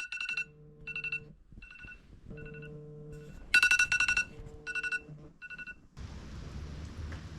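A mobile phone alarm going off: short groups of high, fast-trilling electronic beeps repeat, and a low one-second vibration buzz comes in every two seconds between them. About six seconds in, it gives way to a steady background hiss.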